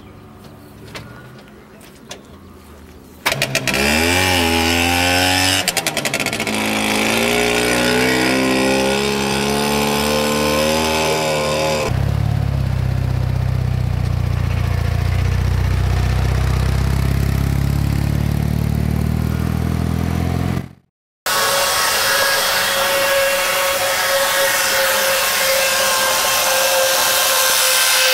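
A few faint clicks, then a small car engine, the BMW 600's two-cylinder, starts abruptly, revs up and down and settles into a steady run. After a cut, slot cars run on a track with a steady electric whine and hiss.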